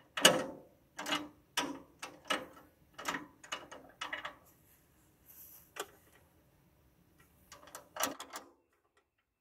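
A run of short knocks and clicks, about two a second, thinning out in the middle and returning briefly near the end: hands handling the battery and its cable clamps while hooking a battery up to a Massey Ferguson 35 diesel tractor.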